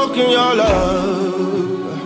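Soul song with a man singing long, wavering notes without clear words, over the backing track, with a low drum hit about a third of the way in.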